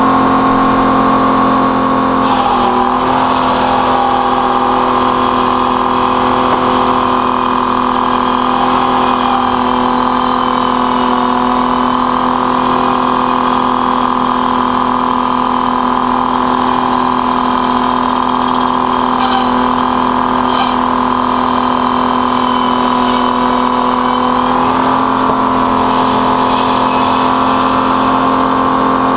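Large belt-driven circular sawmill running with a steady hum; about two seconds in the blade goes into the log and its pitch drops slightly as it slows under the load of the cut, then comes back up near the end as the cut finishes. A few sharp knocks are heard during the cut.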